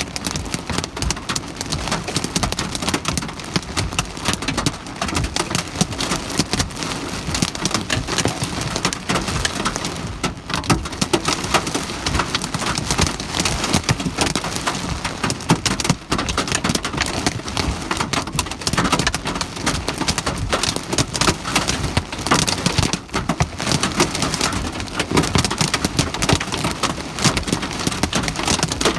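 Hailstones falling hard and striking a surface in a dense, continuous clatter of rapid impacts.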